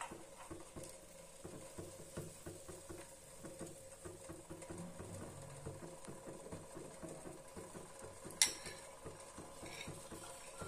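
Thick semolina dhokla batter being poured and spooned into a metal cooker pot: soft wet pattering and stirring sounds, with one sharp clink of the spoon on the pot about eight seconds in.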